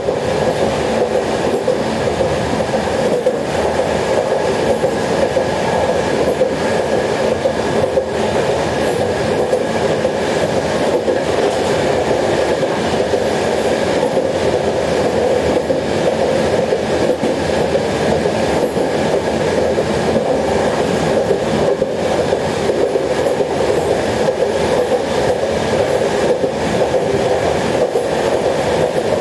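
Steady running noise heard inside a train carriage at speed: a dense, even rumble and rattle with a faint high steady whine above it.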